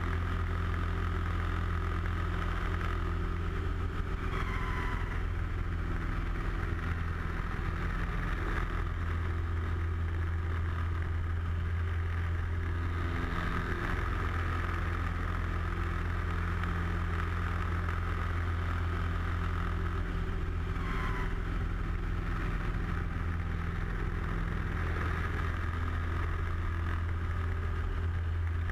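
Light aerobatic aircraft's engine and propeller running steadily, heard from inside the cockpit as a constant low drone with airflow hiss over it. Two brief falling whistles come about four seconds in and again around twenty-one seconds.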